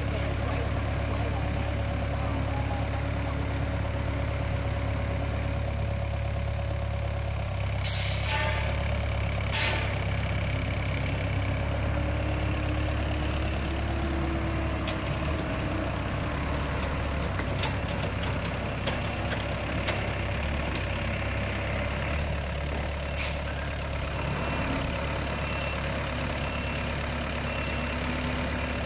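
Small Thaco dump truck's diesel engine running steadily at low revs as it manoeuvres on dirt. Brief sharp hisses sound at about eight and ten seconds in, and again at about twenty-three seconds.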